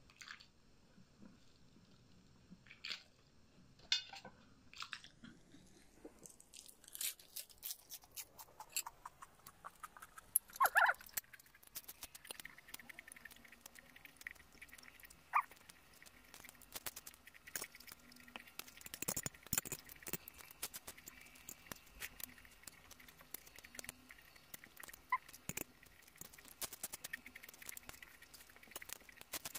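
Close-miked eating sounds: chewing of instant noodles, tomato and lettuce, with many small, irregular sharp clicks and crackles of mouth and food that grow denser in the second half.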